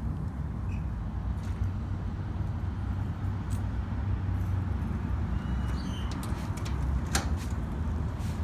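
Steady low outdoor rumble, with a sharp click about seven seconds in.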